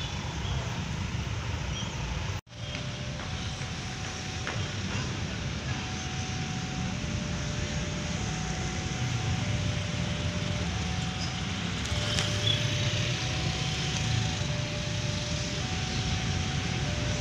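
Steady low rumble of outdoor ambience, wind and distant traffic, by a railway line, broken by a sudden cut to silence about two seconds in. After the cut a faint two-note signal alternates slowly between a lower and a higher tone, about one note a second.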